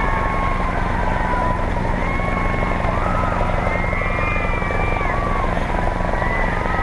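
Helicopter coming in to land, its rotor beating with a fast, steady low chop.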